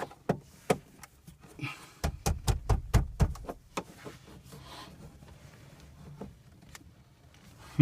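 Plastic interior car trim panel being worked loose with a plastic pry tool: scattered clicks and knocks of plastic against plastic, with a quick run of heavier knocks about two to three seconds in.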